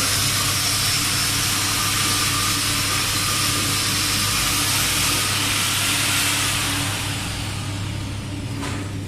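TIG welding arc hissing steadily over a constant low hum, tapering off about seven seconds in, with a short sharp click near the end.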